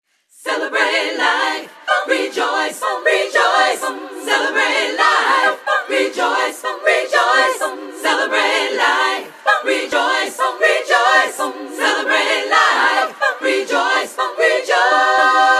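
An a cappella vocal group singing with no instruments. Near the end the voices hold one long chord.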